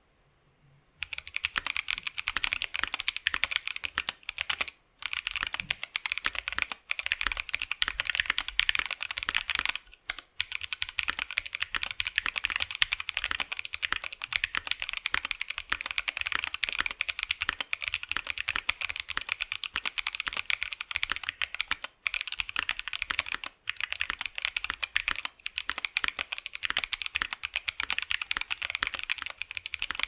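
Fast, continuous typing on a 65% mechanical keyboard (KBDfans D65 with a polycarbonate plate) fitted with Salmon tactile switches lubed with Carbon GS1 and EPBT PBT keycaps. The keystrokes start about a second in and go on steadily, with brief breaks about five and ten seconds in.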